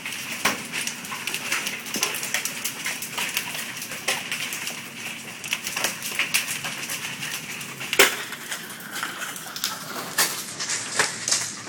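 Large hailstones, some the size of golf balls, clattering onto pavement and roofs in a continuous run of sharp cracks over a steady hiss. One especially loud crack comes about eight seconds in.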